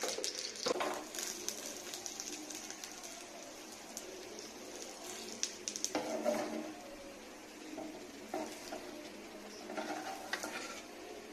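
Paratha frying in oil in a pan with a steady, faint sizzle, and a few short scrapes and taps of a wooden spatula against the pan, near the start, about six seconds in and near the end.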